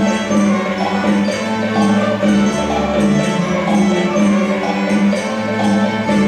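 String orchestra of violins, cellos and double basses playing, with a steady held low note under chords that change about every second.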